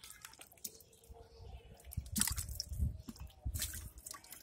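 A catfish thrashing in shallow muddy water, with irregular wet splashes and squelches that come in a few louder bursts through the middle.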